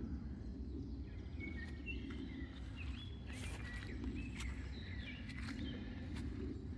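Outdoor ambience: small birds chirping in short, high calls that step up and down in pitch, over a steady low rumble, with a few sharp clicks.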